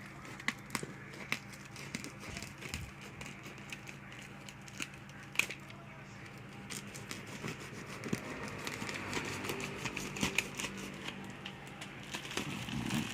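Packaging being handled and unwrapped by hand: crinkling and rustling with scattered sharp clicks and taps.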